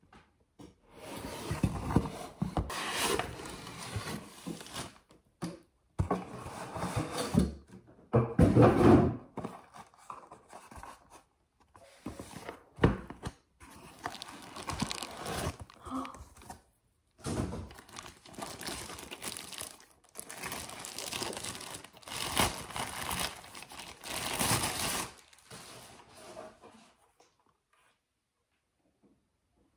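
Mini projector packaging being unpacked by hand: cardboard, foam sheets and plastic rustling, scraping and crinkling in irregular bursts, with a few thunks of the box against the table.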